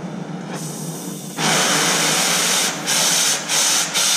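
Oxy-acetylene cutting torch flame hissing. It grows much louder about a second and a half in as oxygen is added to the flame, which dips briefly a few times near the end.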